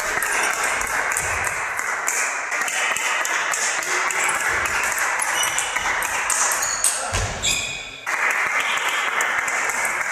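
Table tennis rally: rapid, sharp clicks of the ball striking the bats and bouncing on the table, many in quick succession.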